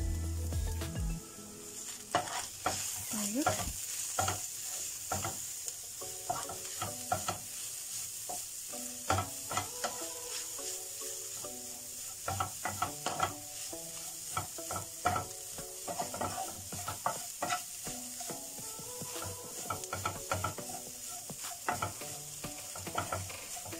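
Wooden spatula stirring and scraping shredded chicken around a non-stick frying pan, with irregular scrapes and taps against the pan over a steady sizzle of the chicken frying.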